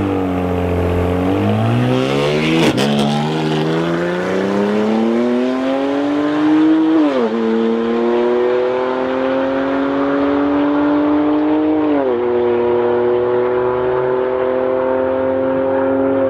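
Single-turbo BMW 335i's 3.0-litre turbocharged inline-six launching and accelerating hard down a drag strip. The engine note climbs steadily through each gear and drops sharply at two upshifts, about seven and twelve seconds in.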